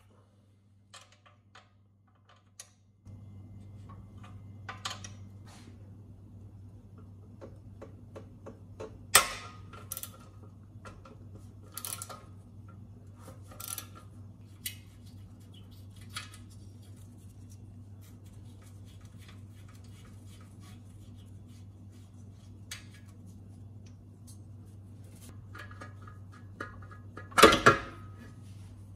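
Hand tools clinking and knocking on metal as a socket wrench works bolts on a small generator engine's muffler, with scattered sharp clicks and a louder metal clatter near the end. A steady low hum runs underneath from about three seconds in.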